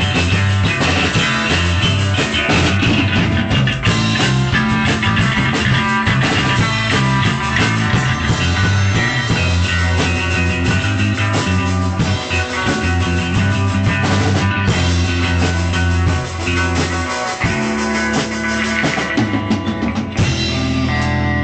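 A drum kit played hard along with loud rock music, with guitar in the mix. Near the end, the cymbals and drums drop out and a steadier guitar part carries on.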